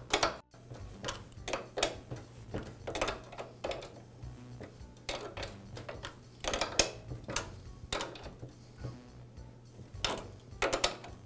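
Irregular metallic clicks and knocks, often in pairs and roughly one to two a second, as a small adjustable wrench turns a Porter Cable planer's cutter head pulley nut back and forth by hand to work the drive belt off the pulleys.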